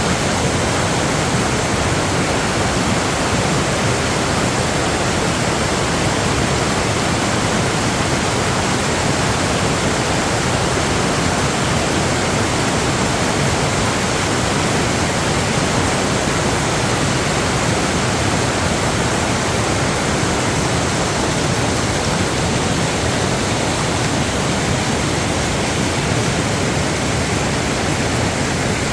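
Steady rush of swollen floodwater, an even, unbroken roar of flowing water.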